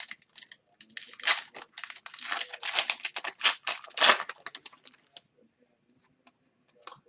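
Upper Deck hockey cards and their foil pack being handled: a run of papery rustling, sliding and crinkling strokes as cards are shuffled through, stopping about five seconds in.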